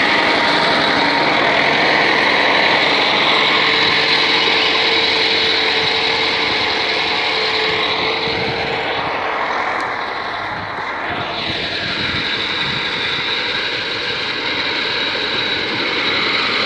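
Crawler tractor's engine running steadily under load with track clatter as its front blade pushes through packed snow. The engine eases briefly about ten seconds in, then picks up again.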